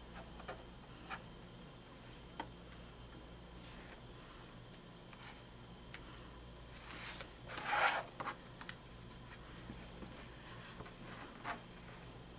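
Quiet handling of quilt fabric on a cutting mat: soft rubbing of cotton pieces and a few small ticks of pins, with one louder swish of fabric about eight seconds in.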